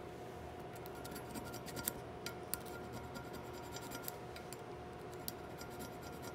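Small flat needle file scraping in short, irregular strokes against the slot of a rifle barrel's underlug, with a few sharp clicks, faint over a steady hum. The filing smooths the jeweler's-saw cut edges of the slot to line up with the drilled pin hole.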